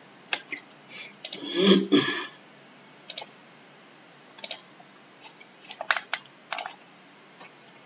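Computer mouse clicking, a dozen or so sharp irregular clicks with a quick double click about six seconds in, as menu items and chains are picked. A brief low murmur of voice comes about two seconds in.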